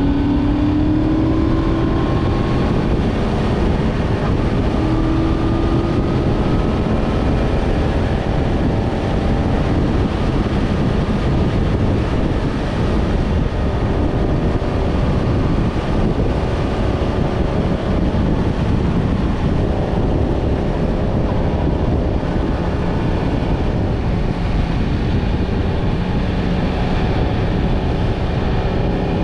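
Yamaha MT-10 motorcycle's inline-four engine running under way, with heavy wind rush over the microphone. The engine pitch rises in the first couple of seconds and again about five seconds in.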